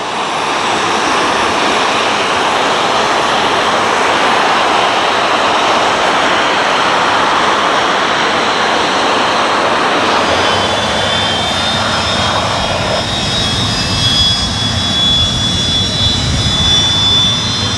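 Jet aircraft engines running: a steady loud roar, with a high turbine whine coming in about ten seconds in and a deeper rumble building near the end.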